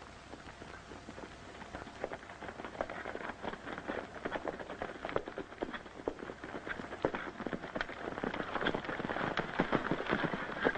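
Hoofbeats of several galloping horses, a dense, irregular clatter of hoof strikes that grows louder as they come closer.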